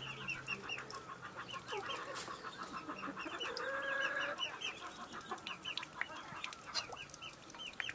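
Chickens clucking and calling, with a steady run of short high chirps and one longer drawn-out call about three and a half seconds in.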